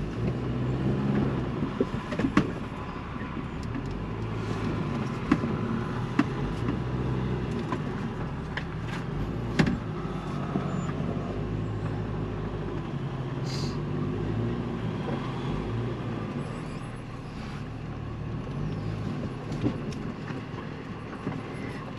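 Ford Bronco's engine running at low revs as it crawls slowly over a rocky trail, with scattered short knocks and clicks throughout.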